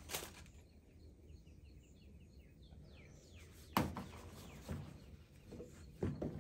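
A bird chirps a quick run of short, high notes over a quiet background, then a single sharp knock comes about four seconds in, followed by a few softer taps near the end.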